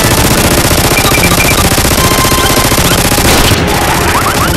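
Loud, rapid automatic gunfire, a fast continuous rattle of shots in the manner of a machine-gun sound effect, laid over a Nerf blaster firing.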